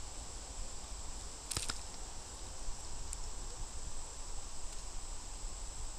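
Insects trilling steadily at a high pitch over a low rumble, with one sharp click about a second and a half in.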